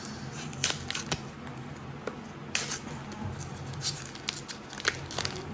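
Foil wrapper of a Pokémon TCG booster pack crinkling with a series of sharp crackles as a stubborn pack is worked open.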